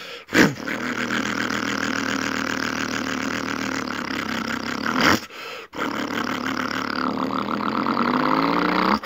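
A man's vocal imitation of a John Deere 4020 tractor's diesel engine: a short burst, then a steady engine-like drone. There is a brief break about five seconds in, and the pitch rises toward the end as he revs it up.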